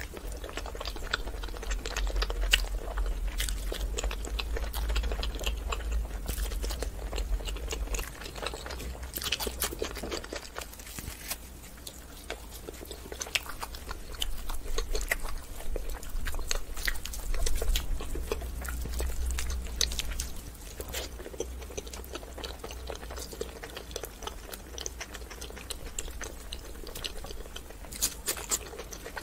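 Chewing and wet mouth sounds of someone eating luchi, a puffed fried flatbread, with curry, with many small smacks and clicks throughout.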